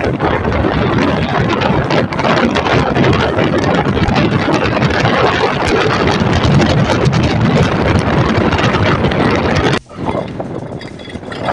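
Heavy wind buffeting the microphone of a moving motorcycle, with road and traffic noise underneath. It drops off suddenly near the end, leaving quieter traffic sound.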